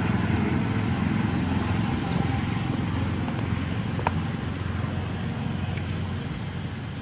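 Steady low outdoor rumble, with a short high rising-and-falling note about two seconds in and a sharp click about four seconds in.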